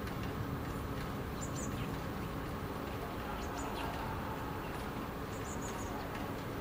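Steady low hum of city ambience with a few short, high bird chirps, about three in all, spread through.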